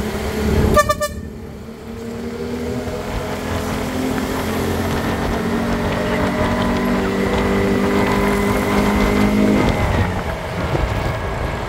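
Riding through street traffic in an open-sided vehicle: a short horn beep about a second in, then the steady drone of a motor vehicle's engine at cruising speed with road noise, the drone falling away about ten seconds in.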